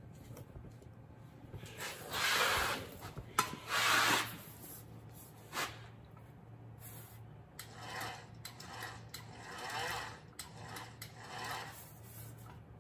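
Bead roller rolling a bead into a sheet-metal quarter-panel patch: the sheet rasps and scrapes through the rollers in short passes, two louder ones a couple of seconds in and softer ones through the second half, with a few sharp clicks.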